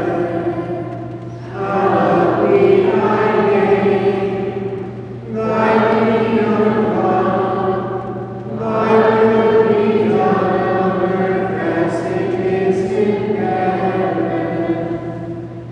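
Children's choir singing a sacred piece in sustained phrases of a few seconds each, with short breaths between the phrases.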